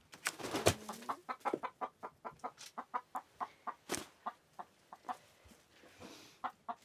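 Hens clucking in a long run of short, evenly spaced clucks, several a second, with a single sharp click about four seconds in. They are shaken survivors of a fox attack, taken to be in shock.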